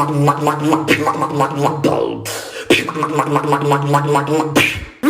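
Human beatboxing: a fast run of mouth clicks and snares over a hummed bass note. It comes in two phrases, with a short break about two seconds in.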